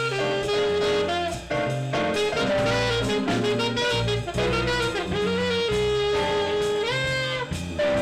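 Live jazz ensemble playing a blues: a saxophone carries the melody over electric keyboard, guitar and drum kit, with a scoop up into a held note about seven seconds in.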